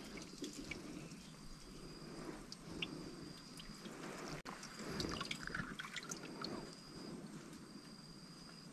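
Faint water dripping and trickling, with scattered small clicks. A thin, high insect trill comes and goes every second or so.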